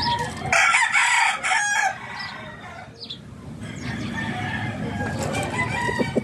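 A rooster crows once, loud, for about a second and a half starting half a second in; softer clucking follows near the end.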